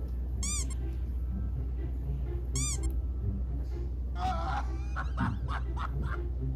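Two short, high squeaks about two seconds apart, each rising and falling in pitch, over a steady low hum. A few quick clicks and rustles follow near the end.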